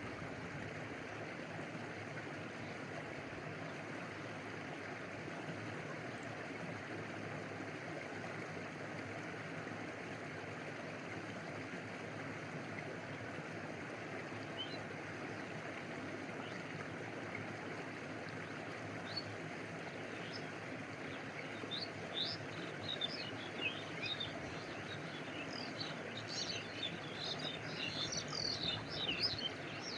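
A stream running steadily, water rushing and lapping. About two-thirds of the way through, quick high chirps start to join in, growing busier near the end.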